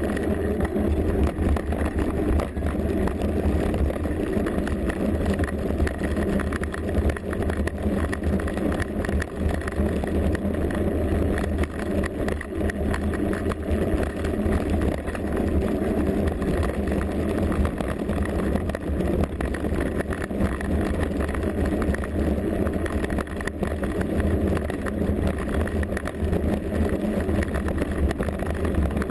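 Mountain bike riding down a rough trail, heard through a bike-mounted GoPro: a steady low rumble of wind and tyres with continual rattling from the bike.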